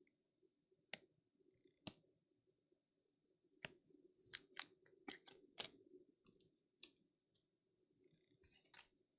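Faint, sporadic light clicks and taps from handling trading cards and rigid plastic top loaders, with a cluster of quick clicks in the middle and a brief crinkly rustle near the end.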